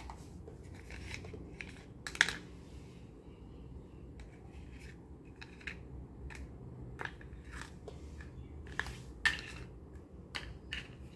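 Thin plastic toy plates clicking and clacking against each other as they are handled and stacked, a light click every second or so, with two sharper clacks about two seconds in and again near the end.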